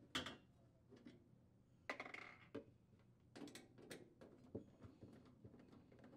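Faint scattered clicks and short scrapes of a refrigerator's evaporator access panel being handled and pulled loose from the freezer's rear liner.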